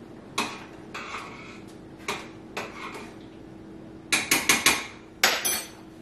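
Pots, pans and a metal utensil knocking and clinking on the stove: a few scattered knocks, then a quick run of sharp metallic taps about four seconds in and two more near the end, over a faint steady hum.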